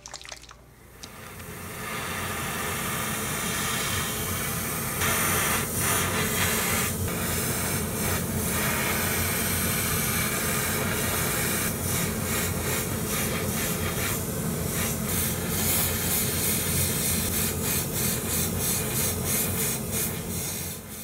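Gravity-feed airbrush spraying paint: a loud, steady hiss of air and paint from the nozzle, with many brief dips and surges as the trigger is worked. It starts about a second in.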